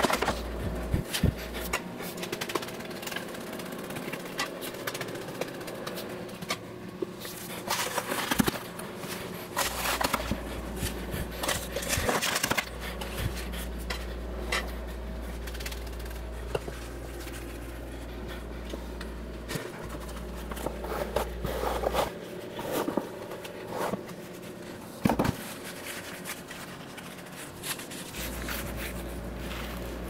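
Irregular scraping and short knocks of wet castable refractory being scooped from a bucket and tamped down into a furnace mould with a wooden stick.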